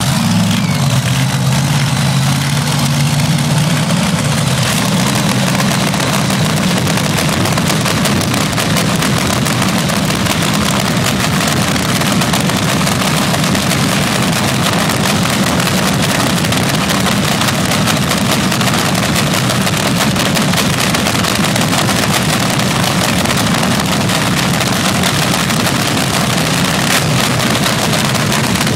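Supercharged engine of an AA/FA fuel altered drag car running at a loud, steady idle.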